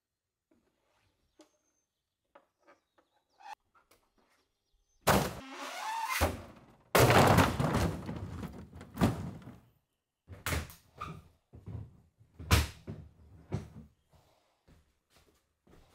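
Old wooden tansu chests of drawers being thrown out from the upper floor: a few faint knocks, then a series of heavy wooden crashes and thuds, the loudest about seven seconds in.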